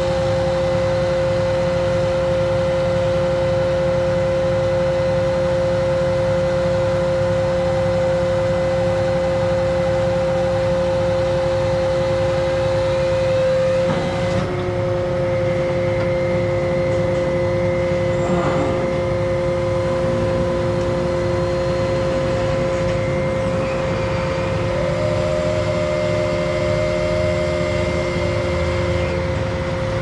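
Truck-mounted tree crane's engine running steadily while the boom and grapple saw are worked by remote, with a constant high-pitched whine over the engine rumble.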